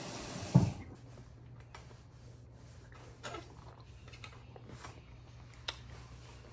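Quiet room with a low steady hum and scattered faint clicks and scrapes of a plastic fork against a takeout food container, with one sharper click near the end.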